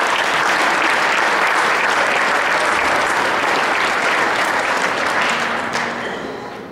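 Audience applauding, starting abruptly and holding steady, then dying away about five and a half seconds in.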